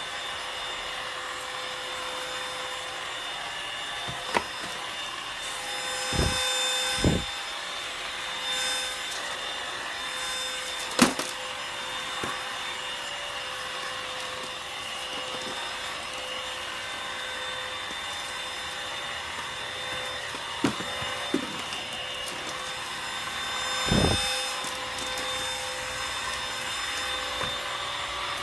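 Dibea D18 cordless stick vacuum cleaner running steadily with a constant motor whine. A few sharp knocks and low thumps come through, the loudest about a third of the way in.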